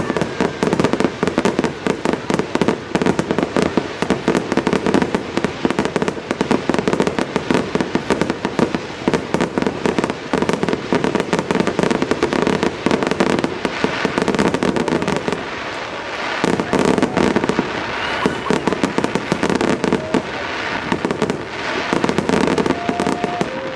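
Aerial fireworks display in a dense barrage: rapid, overlapping bangs and crackling shell bursts with hardly a break, thinning slightly in the last third.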